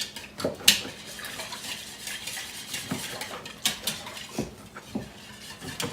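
Hand whisk beating eggs, water and cooking oil in a mixing bowl, the wires clicking and scraping against the bowl in quick, irregular strokes as the mixture is whipped toward a foam.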